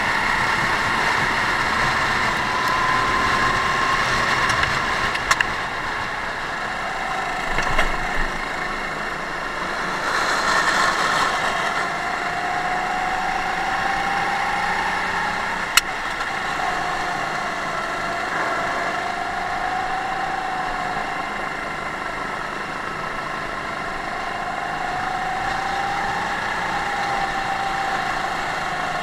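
Racing kart engine heard from onboard the kart, its pitch rising and falling over several seconds as it speeds up and slows down around the track. A sharp click is heard about sixteen seconds in.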